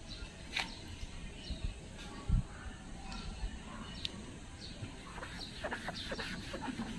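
Foam applicator pad rubbing over car window glass, with a run of short rubbing strokes near the end. Faint bird calls sound in the background, and a dull bump comes about two seconds in.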